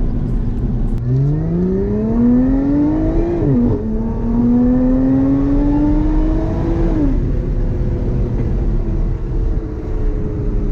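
Lotus Evora 400's supercharged V6 accelerating: the revs climb through one gear, drop at an upshift about three and a half seconds in, climb again more slowly, then fall away as the throttle is lifted about seven seconds in.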